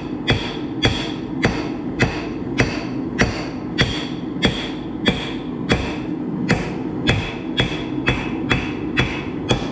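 Hand hammer striking hot steel on an anvil in a steady rhythm, about three blows every two seconds, each blow ringing briefly: forge-welding the laminated billet with a smaller hammer.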